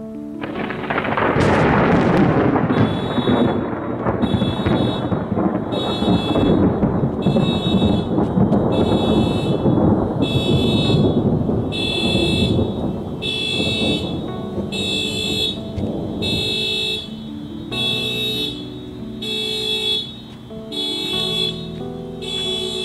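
A loud thunderclap about half a second in, rumbling and slowly dying away over some fifteen seconds. From about two seconds in, a car alarm set off by the thunder sounds a repeating high pulse about once a second. Background music with changing low notes runs underneath and comes through more clearly near the end.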